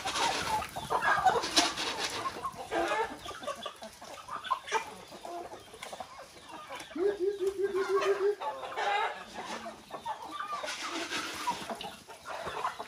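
A flock of domestic chickens clucking and calling as they crowd around for feed, many short overlapping calls. About seven seconds in, one bird gives a quick run of repeated clucks lasting a second or so.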